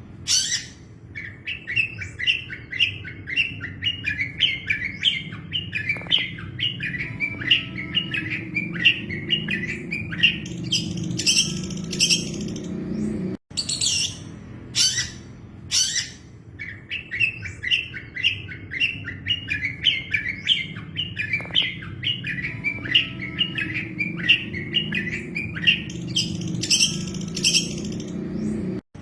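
Long-tailed shrike (cendet) singing: a long run of quick, evenly repeated chirped notes, about two to three a second, capped by a few louder, harsher high calls. The same phrase breaks off about halfway through and plays again identically, as a looped recording.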